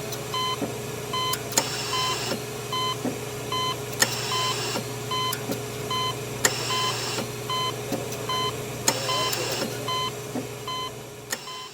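Hospital life support machine: a monitor beeping at a high pitch about twice a second, and every two and a half seconds or so a click followed by a short hiss of air, over a steady low hum. It fades out near the end.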